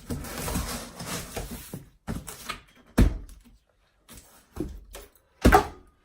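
Handling noise while unpacking: about two seconds of rustling, then scattered knocks and clunks, with two loud thumps about three and five and a half seconds in.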